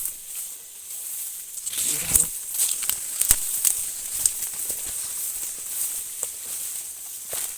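Footsteps and rustling through corn plants, with a louder rustle about two seconds in and a sharp knock a second later, over a steady high-pitched hiss.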